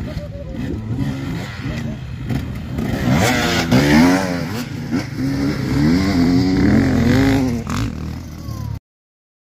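Off-road enduro motorcycle engine revving hard as a bike passes close, its pitch rising and falling repeatedly with the throttle, loudest in the middle. The sound cuts off abruptly near the end.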